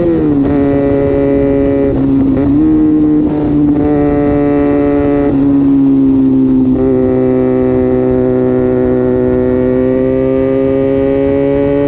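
Sport motorcycle engine running at steady high revs under way. The pitch dips slightly about half a second in, shifts a little a few more times, and slowly climbs near the end.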